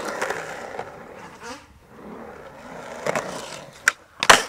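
Skateboard wheels rolling on concrete. Near the end the tail snaps sharply as the board is popped into a flip trick, and about half a second later comes the loudest sound, the clack of the board landing.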